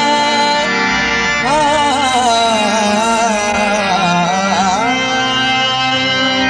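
Background music: a devotional Punjabi song with a sung melody held over a sustained drone-like accompaniment.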